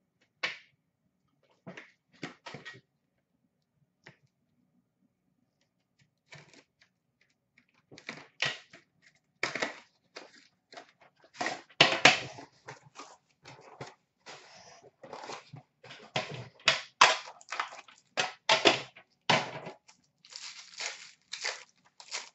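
Hands handling and unwrapping trading card packaging: a few scattered clicks and rustles, then from about eight seconds in a dense run of crinkling and crackling plastic wrap.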